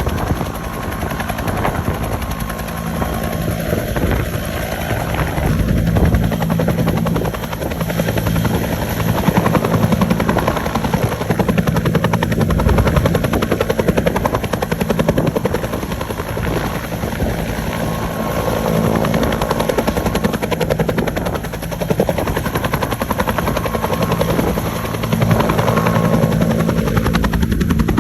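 Firefighting helicopter's rotor and engine running, a steady low beating drone whose loudness swells and eases over several seconds.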